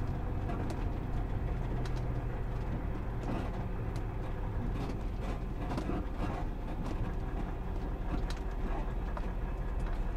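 Volvo semi-truck's diesel engine running as the rig rolls slowly, a steady low hum with a few faint clicks and rattles scattered through.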